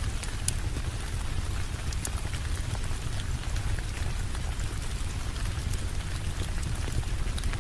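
Steady rain falling, an even hiss over a deep low rumble, with scattered sharp ticks and pops throughout.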